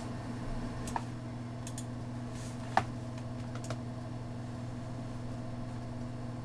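A few scattered computer mouse clicks, the sharpest about three seconds in, over a steady low hum.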